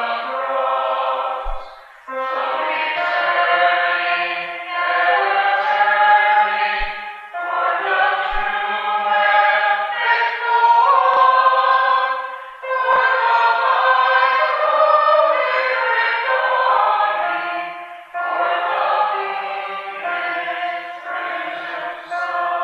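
Congregation singing a hymn together, many voices in sung lines with brief pauses for breath between phrases.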